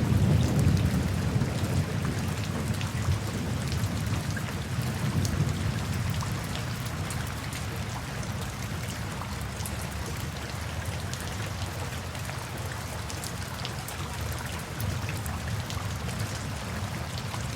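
Steady rain falling, with sharp single drips standing out here and there, over a low rumble of thunder that dies away over the first several seconds.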